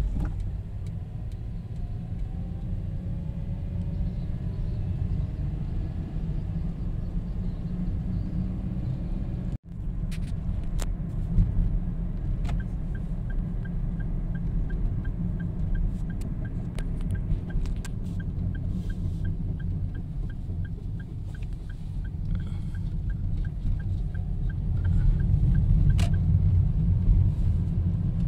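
Car cabin noise while driving: a steady low rumble of engine and tyres on the road. A light, evenly spaced ticking runs for about ten seconds through the middle, and the sound cuts out for a moment about a third of the way in.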